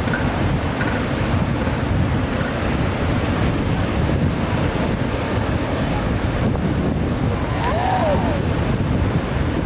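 Ocean surf breaking and washing up a sandy beach, with heavy wind rumble on the microphone. A faint short call is heard about eight seconds in.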